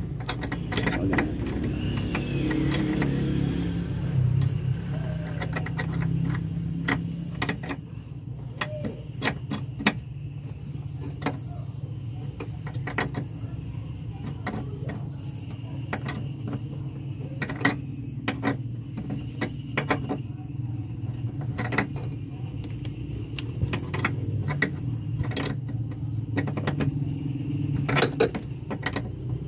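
Irregular metallic clicks, knocks and ratchety clunks from hand work on a van's clutch hydraulics, over a steady low hum.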